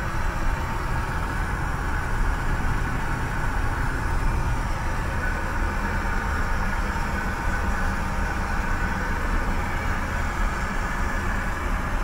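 Steady, unchanging cabin noise of a Boeing 767-300ER in cruise, engine drone and rushing airflow, heard inside the aircraft lavatory.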